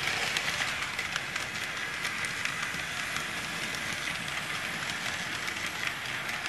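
KATO N-gauge 205 series model train running along the track: a steady whir with scattered light clicks.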